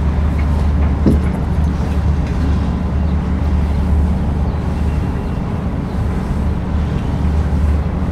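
Steady low drone of a Nile cruise ship's engine while the ship is under way, with a short knock about a second in.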